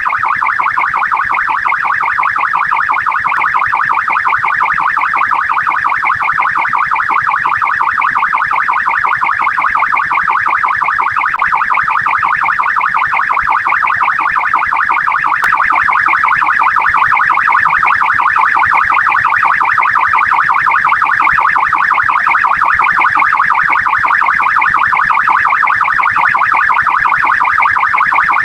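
Australian police car's electronic siren sounding its responding mode as a fast warble, its pitch rising and falling several times a second without a break. It steps up slightly in loudness about halfway through.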